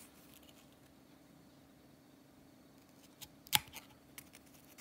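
Metal tin snips trimming a clear plastic crankbait lip: a few faint clicks, then a sharp snip about three and a half seconds in with lighter clicks around it. A faint steady low hum runs underneath.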